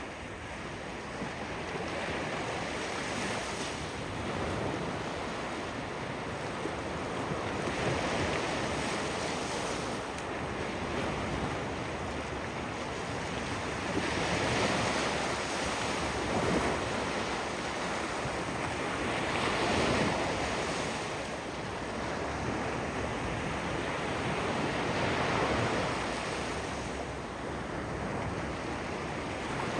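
Ocean waves washing onto a shore, a continuous rush that swells and eases about every five or six seconds.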